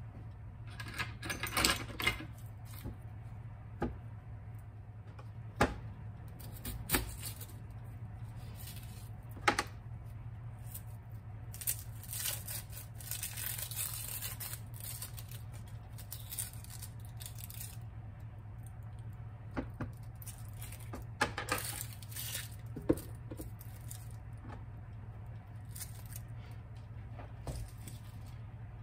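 Dry onion skin crackling and tearing as an onion is peeled by hand, with scattered sharp clicks and taps. A steady low hum runs underneath.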